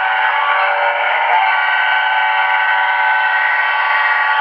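Model diesel locomotive's DCC sound decoder playing through its small onboard speaker: a steady chord of several held tones with no deep bass. The chord shifts about a second and a half in, then holds.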